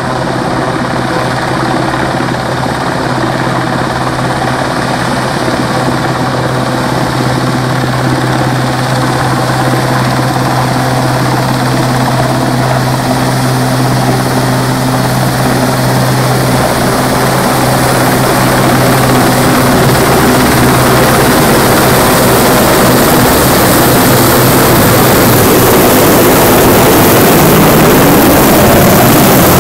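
Yellow RAF Sea King search-and-rescue helicopter flying, a steady rotor and turbine drone that grows louder as it comes overhead. Near the end, wind buffets the microphone.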